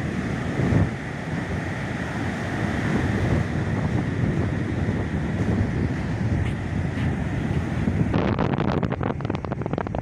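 Strong wind buffeting the microphone over the steady wash of heavy breaking surf. In the last couple of seconds the wind noise turns to rapid crackling.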